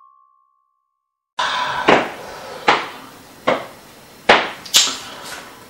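A held music note fades out into a moment of silence, then five sharp knocks over faint room noise, most about three-quarters of a second apart.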